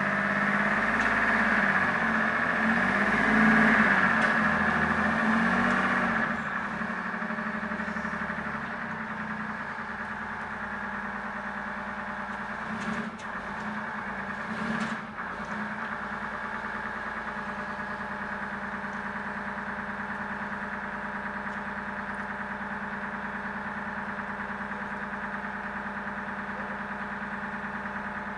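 General Motors 6V53 two-stroke V6 diesel of an M548 tracked carrier running louder for the first six seconds or so, then settling to a steady idle. Two brief clatters come about halfway through.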